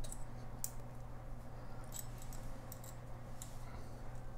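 A few faint, scattered metal clicks as the bracket of a stainless steel and brass shower slide bar is worked by hand onto its brass wall mount.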